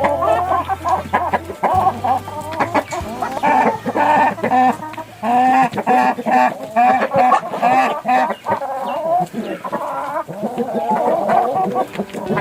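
Chickens in a flock clucking and calling, many short calls overlapping one another.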